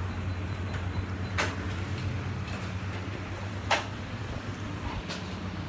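Steady low hum with three sharp knocks, the loudest about two-thirds of the way through, typical of a phone being handled as it records.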